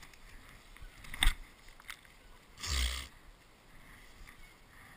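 A sharp knock about a second in, then a short scuffing rumble near three seconds in: the action camera being jolted and tipped over in the snow, over faint wind on the microphone.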